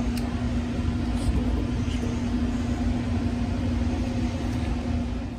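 Steady low rumble with a constant hum from a running machine, unchanging throughout.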